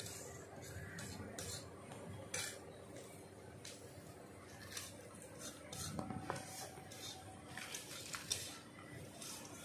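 Metal spatula scraping and clinking irregularly against a metal kadai while stirring chopped onion, garlic and chilli frying in mustard oil.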